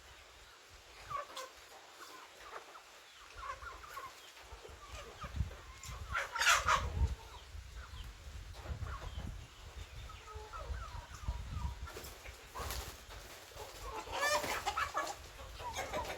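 Chickens clucking on and off, with two louder, longer calls: one about six and a half seconds in and a burst near the end. A low rumble runs under the calls from about a third of the way in.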